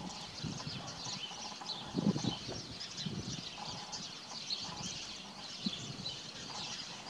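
Many small birds chirping continuously, with a few dull low thumps, the loudest about two seconds in.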